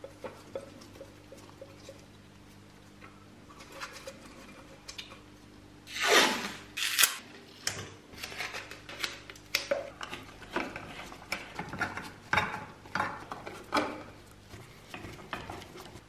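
Taking apart an antique wall-mounted coffee grinder: irregular clinks, taps and scrapes of its ceramic canister and metal grinder housing against each other and the wooden board, with a screwdriver working a screw. The loudest is a scrape about six seconds in, followed by a string of short clicks.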